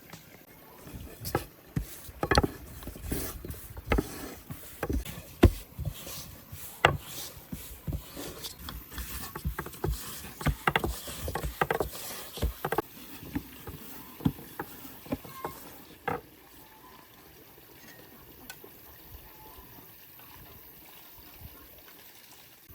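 A run of sharp, irregular knocks and clatter, like objects being handled and set down, that stops about sixteen seconds in.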